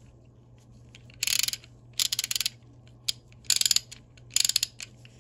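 A reassembled Proto 5449-14BL half-inch-drive spud ratchet clicking in four short bursts of rapid pawl clicks as it is worked, testing the rebuilt pawl mechanism.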